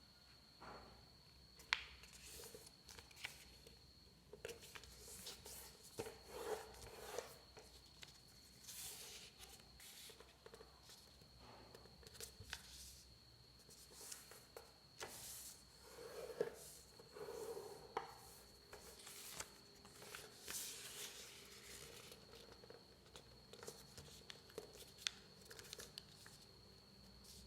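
Sheet of origami paper being folded by hand: faint, irregular rustles and swishes with now and then a sharp crease click. A faint steady high whine runs underneath.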